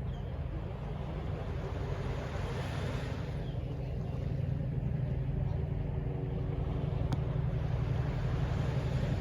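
Distant city traffic: a steady low rumble with a hum, swelling as vehicles pass a couple of seconds in and again near the end. There is a single sharp click about seven seconds in.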